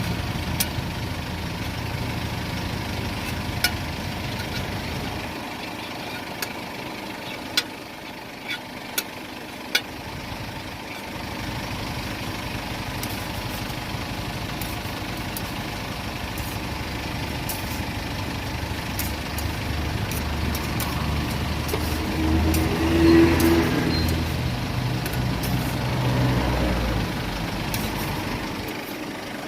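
Motor traffic passing on the street: a low engine rumble that fades away early on, then builds up again and is loudest near the end. A few sharp clicks sound over it in the first ten seconds.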